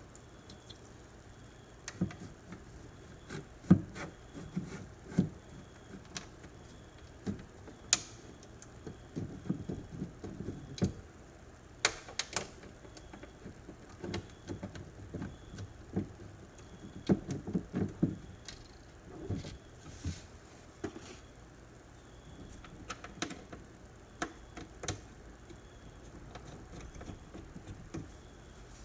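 Irregular knocks, clicks and light scrapes of hands and metal parts as a car door latch assembly and its lock rod are worked into place inside the door.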